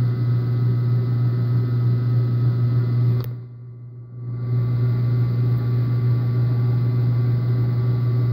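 Metal lathe running without cutting: a steady motor and spindle hum with a few faint steady tones above it. The sound drops away suddenly about three seconds in and builds back up a second later.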